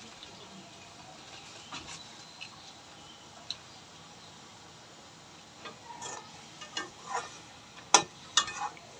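Long metal spatula scraping and clinking against a metal karai while vegetables are stir-fried, over a faint steady hiss. Scattered taps at first, then more frequent clinks in the last few seconds, the sharpest about eight seconds in.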